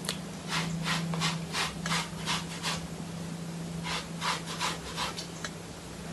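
Rasping rubbing strokes of wig hair being handled or brushed close to the microphone, about three strokes a second, in two runs, over a steady low hum.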